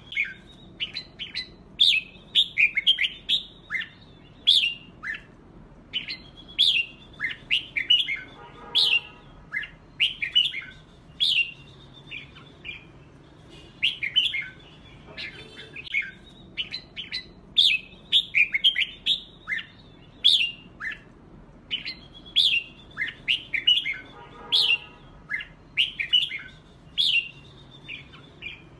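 Red-whiskered bulbuls singing competitively: quick, warbling phrases of short whistled notes, with a harsher buzzy note about a third of the way in and again near the end.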